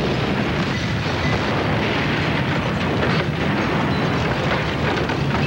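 A steady rumbling roar from a huge blaze and billowing fireball, with no separate blasts or cracks.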